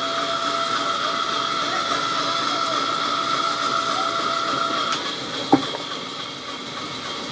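Sawmill machinery running with a steady high whine; the strongest part of the whine stops about five seconds in, and a single sharp knock follows.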